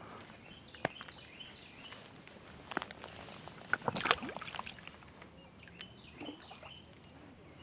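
A released bass splashes into shallow lake water about four seconds in, the loudest sound here. A bird chirps briefly twice over a quiet outdoor background.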